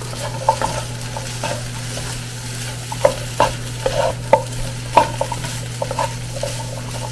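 Vegetables stir-frying in a nonstick wok, turned with a wooden spatula: a light sizzle with irregular scrapes and knocks of the spatula on the pan, busiest about three to five seconds in, over a steady low hum.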